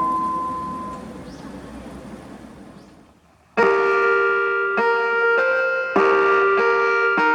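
Japanese municipal disaster-prevention radio (bōsai musen) time-signal chime: the last ringing note of one chime dies away into a steady outdoor hiss. About three and a half seconds in, a new chime melody starts suddenly and loudly in keyboard-like tones, one note after another.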